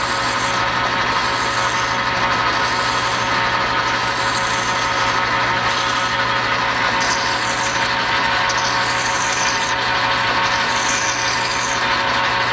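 Hand file stroked against the edge of a steel faceplate spinning in a metal lathe, breaking the sharp edges after turning; the file strokes repeat roughly once a second over the steady running of the lathe.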